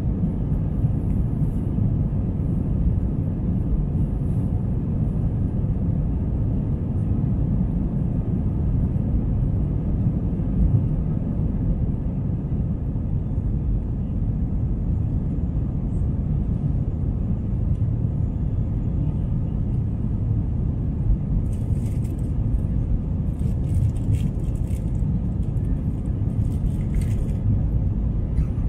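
Steady low rumble of an Airbus A320's jet engines and rushing air, heard inside the passenger cabin during the climb. A few faint clicks come about three-quarters of the way through.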